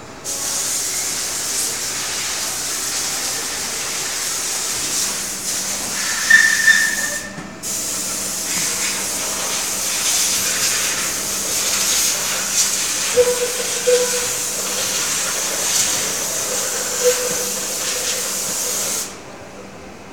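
Compressed air hissing in two long blasts with a brief break about seven seconds in, cutting off abruptly about a second before the end. A short high squeal sounds about six seconds in.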